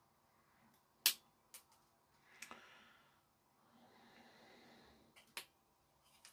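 Side cutters snipping the excess leads of a freshly soldered capacitor on a circuit board: a sharp click about a second in, a few fainter ticks after it, and another crisp snip near the end.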